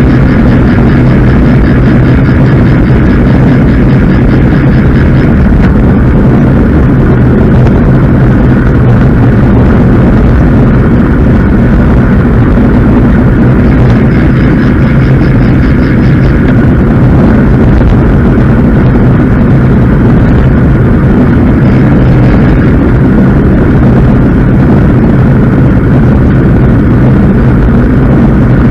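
Steady loud wind rush on the microphone and road rumble from a moving road bicycle. A faint rapid ticking comes in twice, near the start and about halfway through.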